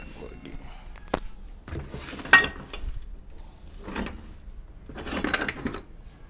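Parts being rummaged and handled: a few short bursts of rustling and clatter, with a sharp knock about two and a half seconds in.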